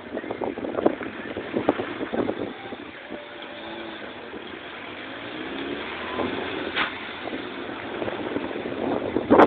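Car noise with wind rushing over the microphone, recorded from a phone held out of the car window.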